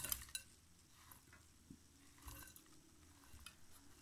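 Dried cannabis buds sliding off a toy tipper truck's plastic bed and dropping into a bowl: faint, light rustling and crackling in a few short spells, loudest at the start.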